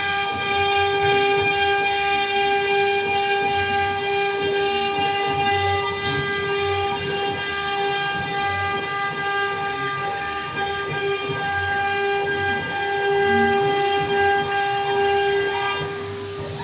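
CNC router spindle running at a steady high speed, giving a constant high whine with a rougher rumble beneath it.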